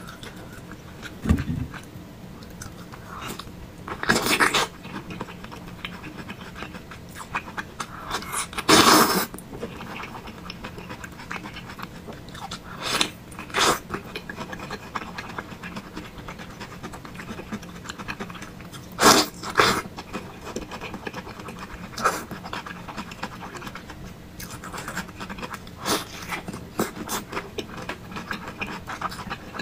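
Eating thick noodles with meatballs: short slurps and mouth noises every few seconds, the loudest about four and nine seconds in, over a faint steady hum.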